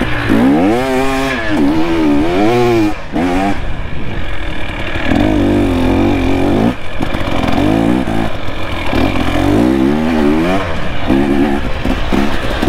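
Dirt bike engine under load, the revs rising and falling again and again as the throttle is worked, with one short steady stretch and a brief drop off the throttle about two-thirds of the way through.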